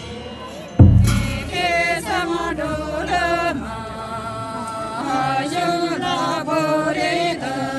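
A group of voices, mostly women's, chanting a melodic devotional chant together in unison, with held notes that step up and down. A single loud crash with ringing comes just before the chanting starts, about a second in.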